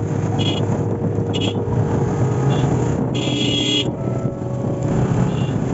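A vehicle running steadily with a low engine hum and rumble, and several short high-pitched sounds, the longest about three seconds in.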